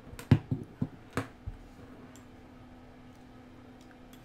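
A handful of sharp clicks and taps in the first second and a half as a 9-volt battery and its snap-on connector clip are handled and clipped together, then only a faint steady hum.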